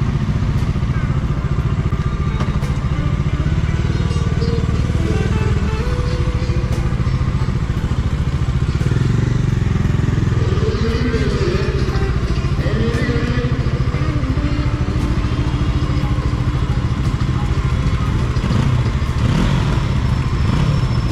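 Bajaj Dominar 400's single-cylinder engine running at low revs in slow stop-and-go traffic, with the revs rising and falling briefly about halfway through; other motorcycle engines run close by.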